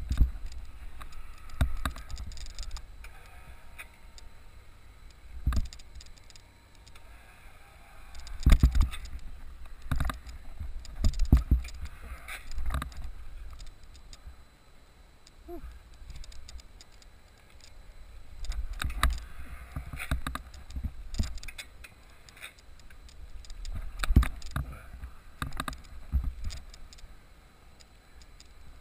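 Irregular gusts of low rumble with scattered knocks and rustles on an action camera's microphone, typical of wind and movement against the camera.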